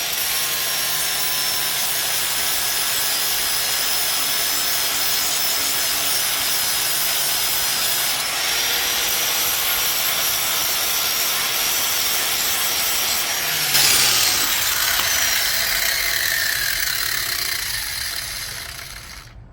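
Right-angle grinder with a sanding disc grinding the edge of a steel lawnmower blade, a steady high whine over a rasping hiss. About fourteen seconds in it is switched off, and the whine falls steadily as the disc spins down.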